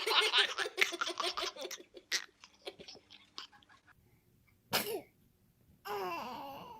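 Rapid laughter fading out over the first couple of seconds, then a baby's short sneeze about two-thirds of the way through, and near the end a longer vocal sound falling in pitch.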